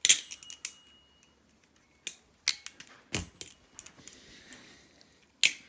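Balisong (butterfly knife) being flipped: the handles clack against each other and the blade, giving a run of sharp metallic clicks at irregular spacing, one with a dull thud about three seconds in.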